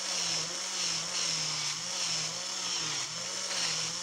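Small electric motor of a Piko HO-scale BR 80 model steam locomotive running at full power, its driving wheels spinning against an abrasive cleaning block pressed lightly on them to scrub off dirt. A steady whir with a hiss, its pitch dipping a little every half second or so.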